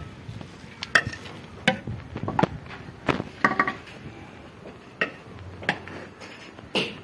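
Steel ladle clinking and scraping against a steel cooking pot as rice pulao is scooped out: a series of irregular sharp metallic clinks, some with a short ring.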